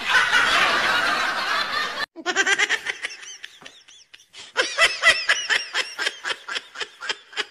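People laughing: a dense wash of laughter for about two seconds, a short break, then quick repeated ha-ha pulses.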